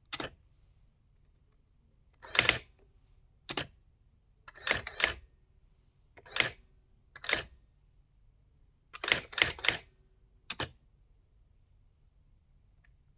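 Brother AX-20 electronic daisywheel typewriter printing characters one at a time: about a dozen sharp clacks of the print hammer at uneven intervals, some single and some in quick runs of two or three, as it echoes characters typed into it as a serial terminal.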